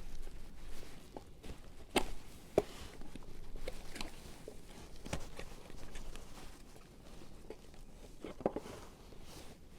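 Hands prying apart the plastic housing of a car heater blower motor, releasing its latch clips: scattered sharp clicks and light knocks, with a quick cluster of clicks near the end.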